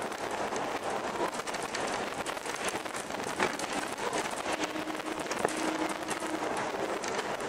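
Running noise heard from inside a moving vehicle: a steady rushing hiss with many small rattles and clicks.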